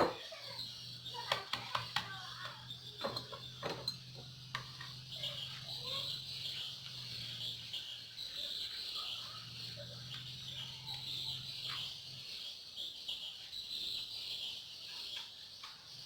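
Crickets chirping steadily, with a low hum that comes and goes and a few scattered clicks and knocks in the first few seconds.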